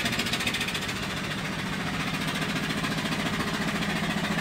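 Bumsted & Chandler vertical twin-cylinder steam engine and its Johnson & Phillips dynamo running steadily with a fast, even beat. The engine is short of steam: its small wood-fired boiler's fire isn't hot enough to keep up with it.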